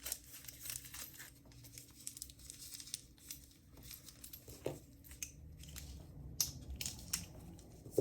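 Packaging being crinkled and torn open as an item is unwrapped by hand, an irregular run of crackles with a few sharper snaps.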